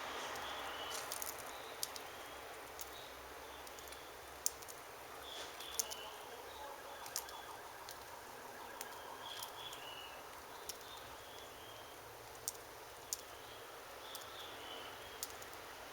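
Small birds giving short, soft, high chirps every second or two at a feeder, with scattered sharp little clicks over a faint steady hiss.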